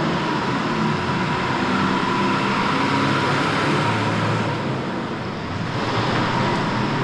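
Steady city street traffic noise, with road vehicle engines running.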